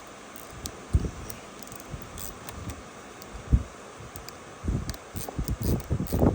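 Wind buffeting the microphone, with a couple of low thumps and gusts that grow stronger near the end.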